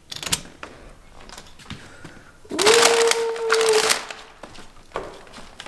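Front door opened to collect a delivery: a click of the knob and latch at the start, then from about two and a half seconds in a loud rustling, rushing noise with a steady squeal, lasting about a second and a half. Another click comes about five seconds in.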